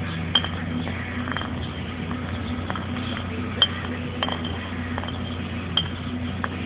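Bottle clinking and knocking sharply a few times as a skunk licks and noses inside it, over a steady low hum.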